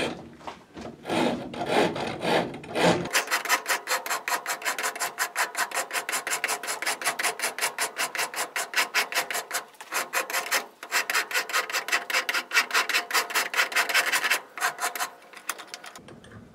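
Half-round rasp stroked back and forth across a wooden drawknife handle blank, shaping the wood with dry scraping strokes. The strokes come slower at first, then quick and regular, several a second, and stop shortly before the end.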